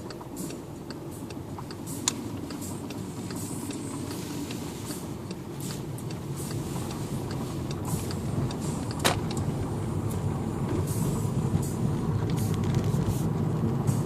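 A road vehicle driving, its low rumble growing steadily louder, with scattered light clicks and rattles and two sharp knocks, about two seconds and about nine seconds in.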